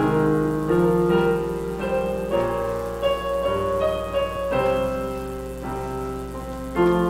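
Piano playing a hymn tune in slow chords.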